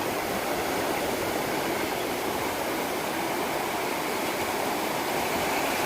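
Steady rushing noise of beach surf and wind on the microphone, unchanging throughout.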